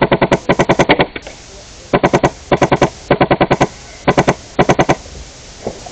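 HPA airsoft M249 with an Inferno Gen 2 engine firing in short full-auto bursts: rapid sharp shots at about a dozen a second, in about seven strings of four to eight shots with brief pauses between.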